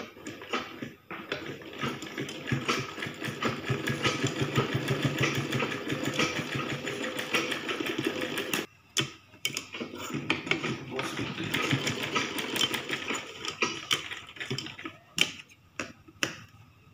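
Sewing machine running fast and steady as it stitches a seam. It runs in two long runs with a short stop about nine seconds in, then gives a few separate clicks near the end.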